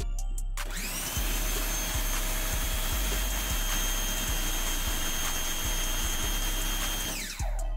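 Electric pressure washer (CAT 1800 PSI) spinning up just under a second in, then running steadily under load with a high whine and spray hiss while holding about 900 PSI through a 25° nozzle. Near the end the whine falls away as the motor winds down.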